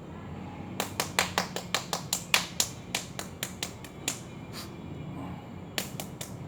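A quick, irregular run of sharp slaps, about fifteen in three seconds, followed by a brief pause and then a few more slaps near the end.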